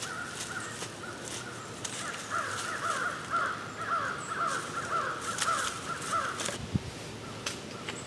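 Birds calling in the woods: a continuous run of harsh, repeated calls, about three a second, that stops about six and a half seconds in. A few soft knocks follow near the end.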